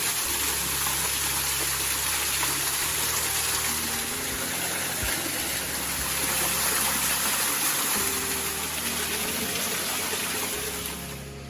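Rushing water, a steady gush that stops abruptly near the end, over soft background music with low held notes.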